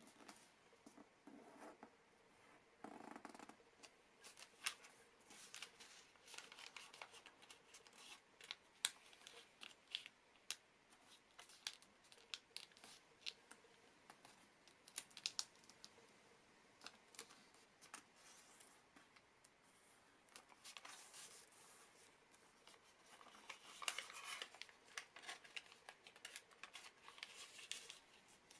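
Faint crinkling and rustling of a sheet of origami paper being folded and creased by hand, with many scattered sharp crackles and denser spells of rustling about two-thirds of the way in and near the end.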